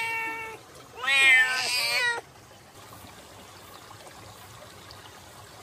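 Tabby cat meowing twice: one call tails off just after the start, and a longer, bending call comes about a second in, then only a faint steady background. The cat is begging for more food.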